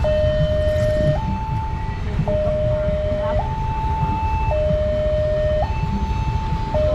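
Railway level-crossing warning siren sounding its two-tone alarm: a lower and a higher tone alternate, each held about a second, with a brief break a little after two seconds in. A steady low rumble runs underneath.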